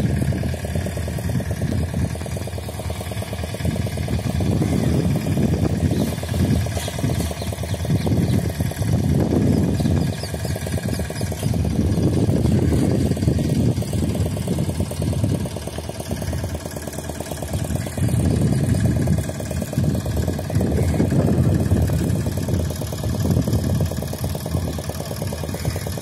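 Fishing boat engine running steadily at low revs, a dense even pulsing with slow swells in the low rumble.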